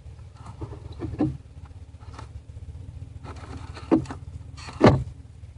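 Clicks and knocks of the truck's HVAC control parts being handled and turned, the loudest one near the end, over a steady low hum.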